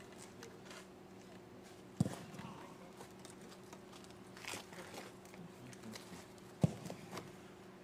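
Two sharp thuds of a football being kicked, about four and a half seconds apart, over a faint steady hum.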